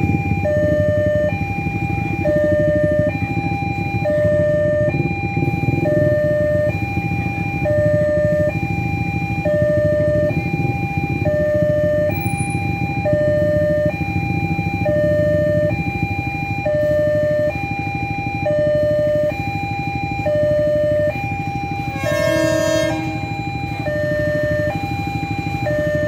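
Level-crossing warning alarm sounding a two-tone electronic chime that alternates steadily between a lower and a higher pitch, each held under a second. Idling motorcycle engines run underneath, and a horn sounds for about a second near the end.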